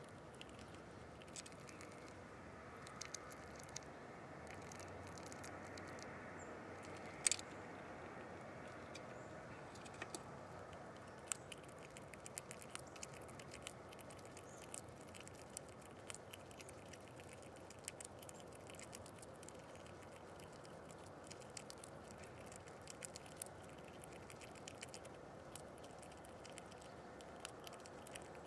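Irregular light taps and clicks of an animal feeding on nuts at a window feeder, with one louder knock about seven seconds in, over a faint steady hiss.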